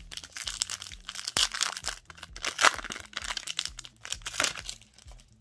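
Foil wrapper of a Pokémon TCG booster pack crinkling and tearing as it is opened by hand: a dense run of crackles that tails off near the end.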